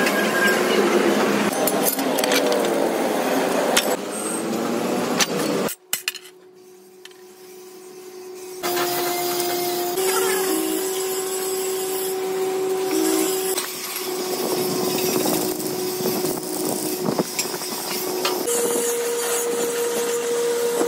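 Steel fabrication noise in quick cuts: clanks and knocks of heavy cut steel plates being handled and light hammer taps on steel, with a steady machine hum from about a third of the way in.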